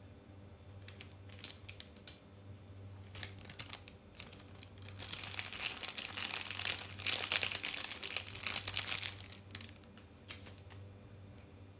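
Close-miked eating of a noodle dish: scattered sharp mouth and utensil clicks, then a dense crackling stretch about five seconds in that lasts some four seconds.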